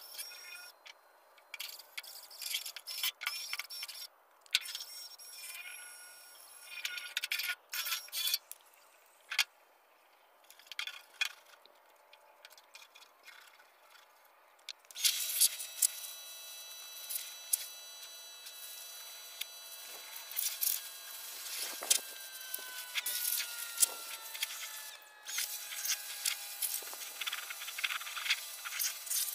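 Scattered scrapes, knocks and water splashing from a bucket, then about halfway a pressure washer starts, its spray hissing steadily on the steel floor pan as the old grease is washed off.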